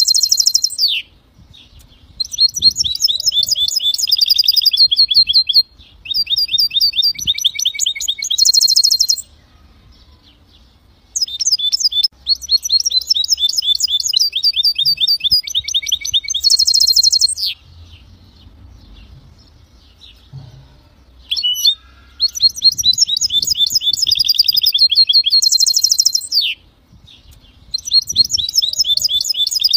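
European goldfinch × canary hybrid (mule) singing: long phrases of rapid, high trilled notes, each closing on a harsh buzzy note, separated by pauses of a couple of seconds.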